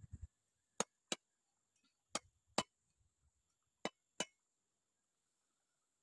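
Six sharp knocks of hard strikes, coming in three pairs with a little under half a second between the two knocks of each pair.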